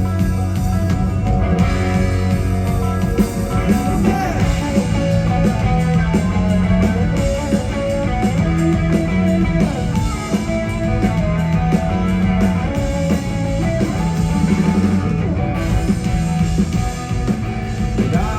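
Live rock band playing a guitar-led passage with drums, with no lyrics sung.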